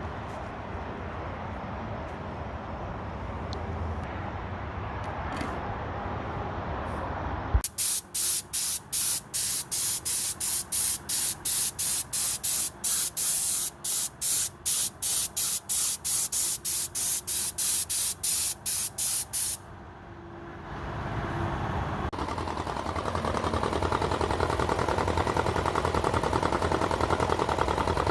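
Paint being sprayed in short, loud hissing bursts, about two a second, for around twelve seconds, starting about seven seconds in. A steadier running noise follows near the end.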